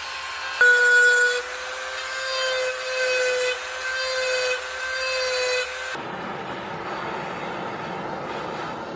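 A power tool working wood: its motor whines in about five short bursts, then gives way to a steady rushing, grinding noise for the last few seconds.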